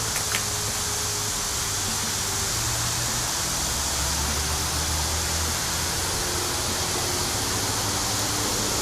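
Steady, even hiss of background noise with a faint low hum beneath it.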